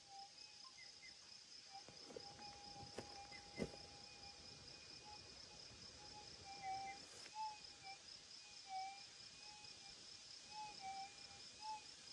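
Minelab GPX 6000 gold detector's steady threshold hum, turned up to high sensitivity, wavering in small blips as the 17-inch coil is swept back and forth, with no clear target signal. A few soft knocks come in the first few seconds.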